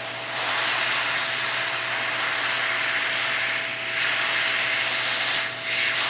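Hot-air heat gun blowing steadily as it shrinks heat-shrink tubing: an even fan hiss with a faint steady hum, swelling slightly a few times.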